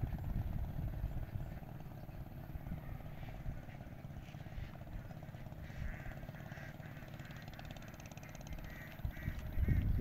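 Wind buffeting the microphone in gusts, strongest at the start and again near the end, with a few short bird calls from about halfway through.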